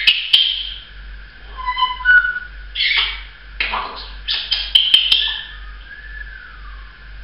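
Caged pet parrot whistling and calling: short clear whistled notes, several harsh squawks and a long whistle that slides downward near the end, with a few sharp clicks in between.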